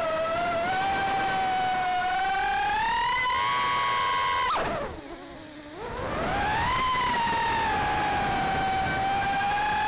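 Brushless motors and propellers of a 2.5-inch Armattan Tadpole FPV quadcopter whining, heard from its onboard camera, the pitch wandering up and down with throttle. About four and a half seconds in the whine drops steeply in pitch and level for about a second as the throttle is cut, then rises again as power comes back.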